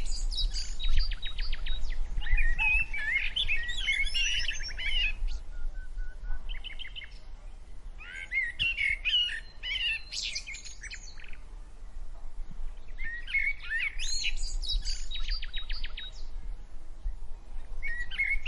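Songbird singing in repeated phrases of quick warbled chirps, several of them ending in a rapid trill, with short pauses between phrases.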